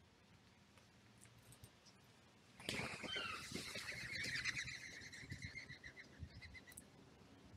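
A sudden flurry of wingbeats about two and a half seconds in, as feeding birds take off together from the ground. A bird's rapid rattling alarm call goes with it, slowing and fading over the next few seconds.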